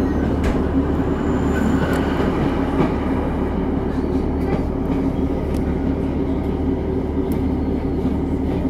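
Diesel passenger train running along the line, heard from inside the carriage: a steady rumble of wheels and engine hum, with a few faint clicks from the track.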